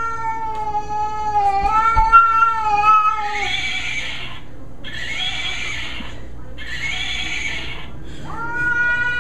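Domestic cat giving a long, wavering yowl, then hissing three times, each hiss about a second long, then starting another long yowl that falls in pitch near the end. These are the defensive threat sounds of a cat facing something it fears.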